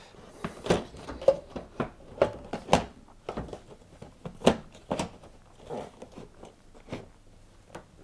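Handling clatter from an LG tumble dryer's plastic water drawer housing being fitted back onto its metal chassis: irregular clicks and knocks of plastic and metal parts, the loudest a little under 3 s in and again about halfway through.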